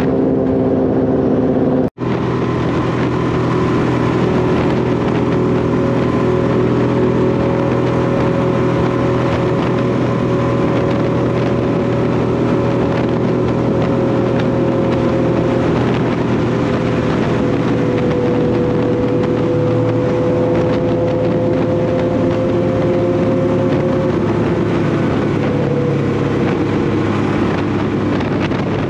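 1998 Honda VT1100 Shadow Ace Tourer's V-twin engine running at a steady cruise, its pitch drifting slightly up and down, under heavy wind rush on a chest-mounted camera microphone. The sound drops out for an instant about two seconds in.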